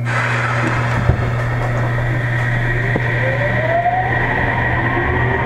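Sendai Subway 1000 series train pulling away from a station: its Mitsubishi IGBT-VVVF inverter and traction motors give a whine that rises in pitch from about two and a half seconds in, over a steady low hum, with a single knock about a second in.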